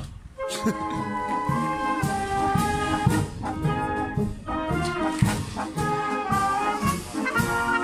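Village brass band playing a tune: a brass melody over a steady beat from the low brass, about two beats a second. The sound dips briefly right at the start, then carries on.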